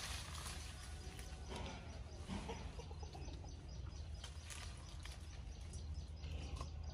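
Outdoor rural ambience: birds chirping faintly over a steady low hum, with a few scattered clicks and knocks.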